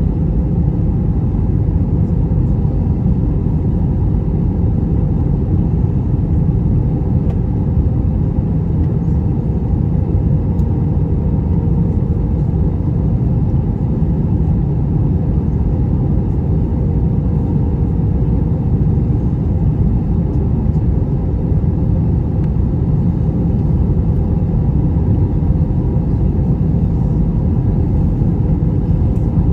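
Steady low rumble of an Airbus A321-200 in flight, heard from inside the cabin: engine and airflow noise with a faint steady hum.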